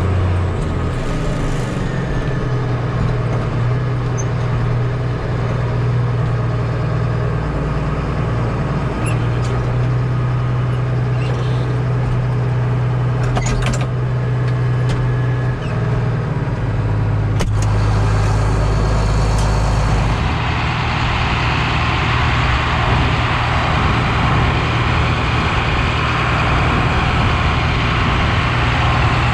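John Deere tractor's diesel engine running steadily under load, working with a pull-type forage harvester chopping alfalfa. About 20 seconds in the deep engine tone eases and a louder rushing hiss takes over, with a few sharp clicks shortly before.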